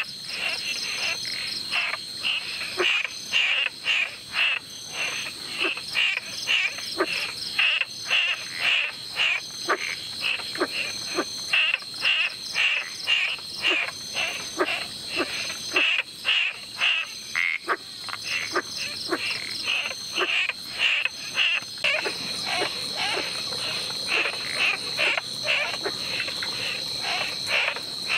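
Tropical rainforest chorus: short calls repeated rapidly, roughly two a second, over a steady high-pitched insect drone that grows louder near the end.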